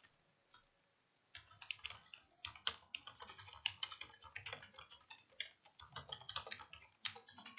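Faint typing on a computer keyboard: a quick, uneven run of keystrokes that starts about a second and a half in.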